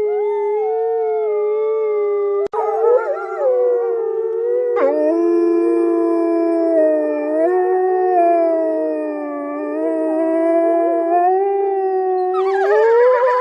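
Wolves howling in long held notes, first one voice, then several overlapping in a chorus. It cuts abruptly twice early on and grows busier and harsher near the end.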